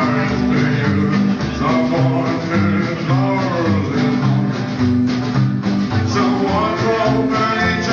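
Rockabilly band music: a singer over guitar, with a steady bass line.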